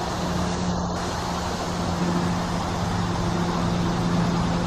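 A steady mechanical hum: a constant low drone under an even rushing noise, unchanging throughout.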